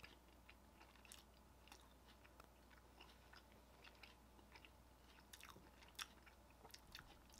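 Faint chewing of a Smucker's Uncrustables barbecue chicken bite, a soft bread pocket, with small scattered clicks and smacks.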